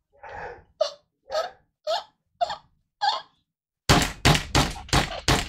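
Someone laughing in short breathy bursts, about two a second, then a quick run of much louder, harsher bursts near the end.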